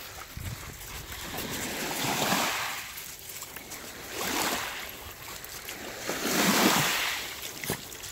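Small lake waves washing up onto a pebble beach, coming in three swells about two seconds apart.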